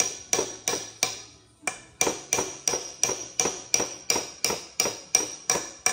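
Gentle, rapid hammer taps on a steel socket, driving new valve stem seals down onto the valve guides of a Mitsubishi Fuso 6D14 diesel cylinder head. The taps come about three a second, each with a short metallic ring, and pause for about a second soon after the start.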